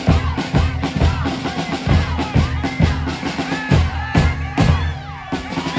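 Drums playing a steady beat, a low bass-drum hit about twice a second with snare strokes between.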